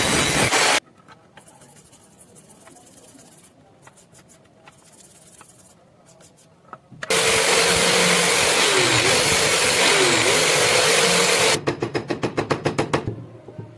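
Power tool working a steel knife blade in a loud, steady grind, with a motor tone that dips twice as the tool is loaded. It stops under a second in, leaving a few faint clicks, starts again halfway through, and ends in a quick run of about ten short strokes.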